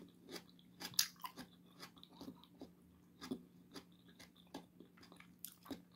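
A person chewing a mouthful of tomato with her mouth closed, a string of faint, irregular wet clicks. A faint steady hum runs underneath.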